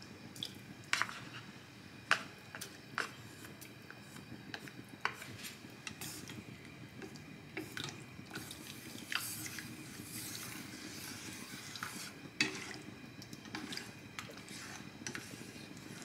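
Wooden chopsticks stirring and breaking up soft tofu in a pot of simmering porridge, with irregular sharp clicks of the chopsticks against the pot over a low steady simmer.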